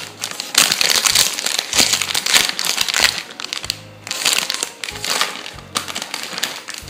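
Baking paper crinkling and rustling in bursts as it is peeled off a freshly baked sponge cake sheet, over background music.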